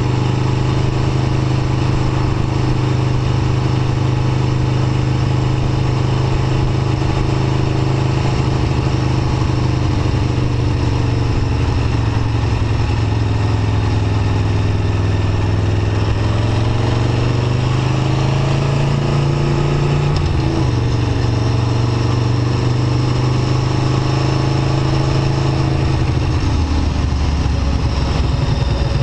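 Aprilia Tuono V4 1100 RR's V4 engine heard from onboard, running at a steady low pace. Its pitch climbs slowly in the middle, drops back about twenty seconds in, and falls away near the end as the bike slows.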